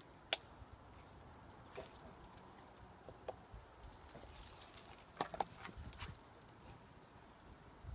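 Dogs playing on grass, their metal collar tags jingling in irregular clusters with scattered sharp clicks. The jingling is busiest about four to six seconds in.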